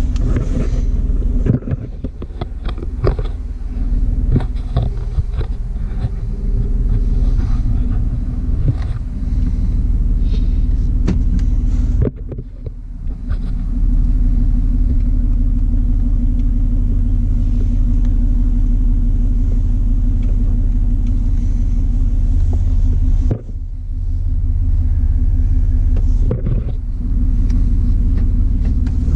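Straight-piped 1994 Chevy S10 pickup's exhaust, muffler removed, giving a loud low drone inside the cab while driving. The drone drops off briefly twice, about twelve seconds in and again about eleven seconds later, then comes back. Scattered knocks and rattles come through in the first dozen seconds.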